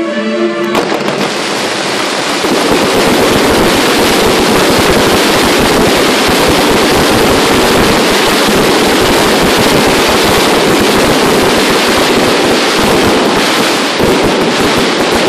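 Aerial fireworks going off in a dense, continuous barrage of bangs and crackle, starting abruptly about a second in just as the music stops.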